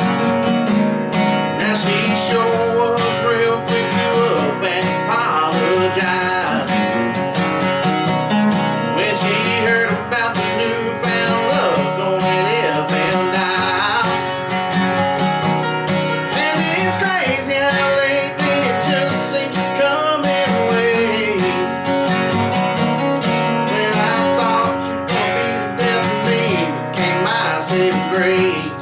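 Two acoustic guitars strummed together with a man singing a country song.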